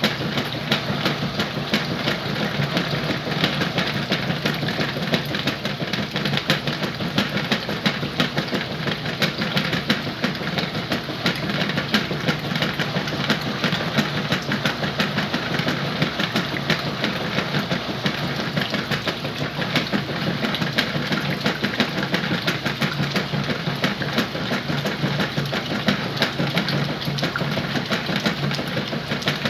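Whirlpool washing machine running steadily with a low hum and a dense, even rattle, no change in pace.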